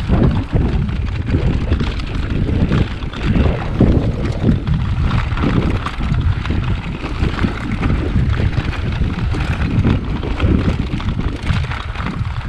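Wind buffeting the microphone in uneven gusts, over the low rumble of a mountain bike riding a rough, roadless track.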